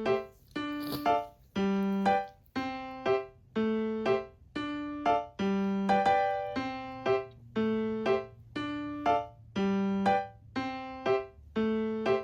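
Background music: a light keyboard melody of clean, fading notes in a steady bouncy rhythm, a longer note then a shorter one about once a second.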